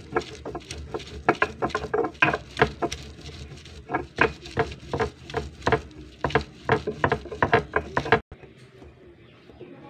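Stone batta knocking and grinding on a sil (flat stone grinding slab) as it crushes green garlic: a rapid run of sharp stone-on-stone knocks, about three a second, that stops abruptly about eight seconds in.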